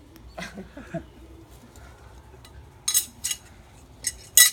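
Steel throwing knives clinking against each other: a few sharp metallic clinks with a bright ring, two about three seconds in and two louder ones near the end.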